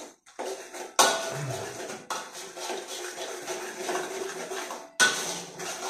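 Metal spatula scraping and knocking against a steel wok during stir-frying. There are sharp knocks about a second in, about two seconds in and near the end, each followed by scraping.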